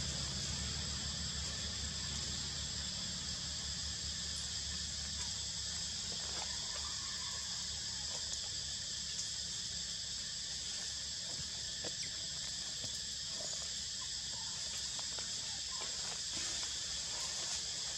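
Steady, continuous high-pitched insect chorus from the surrounding forest, with a low steady rumble underneath.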